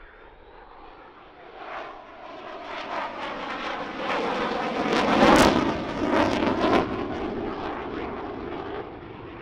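Lockheed Martin F-22 Raptor's twin Pratt & Whitney F119 turbofan engines as the jet passes overhead: the roar builds over several seconds, peaks about halfway through with a crackle, then fades away.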